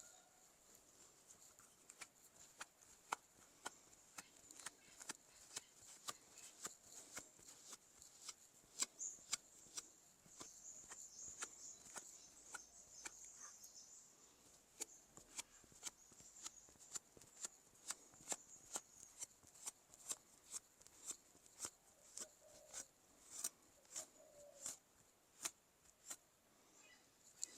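Near silence broken by faint, sharp clicks at uneven spacing, roughly one to two a second, with a faint steady high tone under them.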